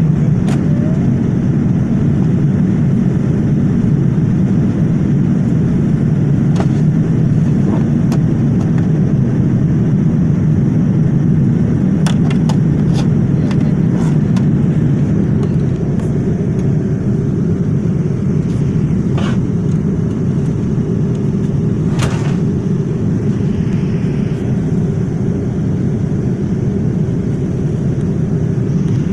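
Steady low roar of a Boeing 787 airliner cabin in flight, air and engine noise at an even level, with a few faint clicks.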